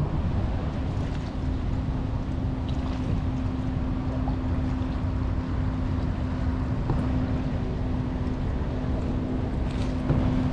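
Wind buffeting the microphone and water lapping around a fishing kayak, with a steady low hum. Near the end come a few short clicks as the baitcasting reel is handled and cranked.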